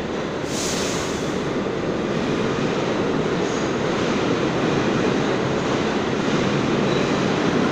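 R46 subway train running past on the far track, a steady rumble of wheels on rail that grows slightly louder, with a short high hiss about half a second in.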